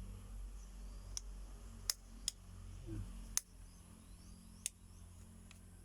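A handful of sharp, separate clicks from handling an analog multimeter and its test probes while setting it to the 250 V AC range, over a faint low hum.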